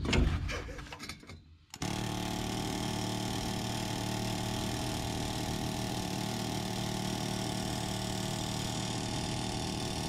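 Pneumatic air hammer (air chisel) hammering steadily at a fast, even rate on a heat-soaked, rust-seized leaf-spring shackle bolt to break it loose from its bushing sleeve. It starts abruptly about two seconds in and cuts off at the very end.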